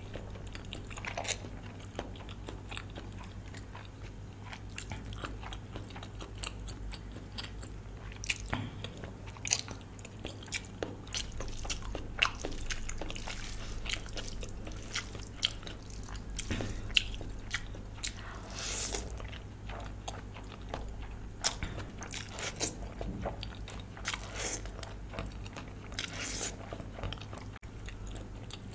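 A person eating close to the microphone: irregular bites and wet chewing, with many short crackly clicks, over a steady low hum.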